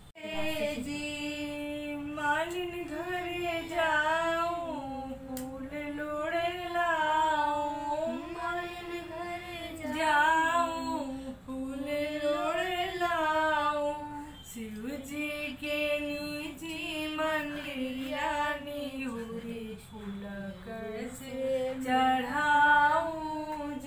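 A woman singing solo, a slow melodic song with long held notes that bend and waver in pitch.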